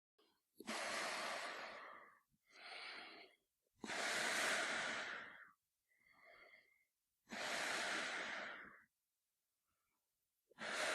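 A man breathing through a gas mask: long, loud, hissing breaths alternating with shorter, quieter ones, about a breath every one and a half seconds, one of the quieter breaths carrying a faint whistle. The breathing stops for about two seconds near the end.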